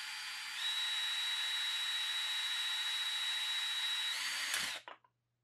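Cordless drill whining as it spins the input of a 3D-printed fluid coupler under load, speeding up in steps about half a second in and again near four seconds. It cuts off suddenly near the end, followed by a few faint clicks.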